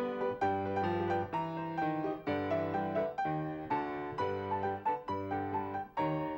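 Solo piano accompaniment: chords over a steady pulse of repeated bass notes.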